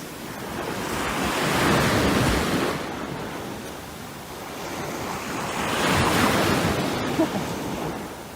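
A rushing noise with no distinct tone, swelling and fading twice, with peaks about four seconds apart.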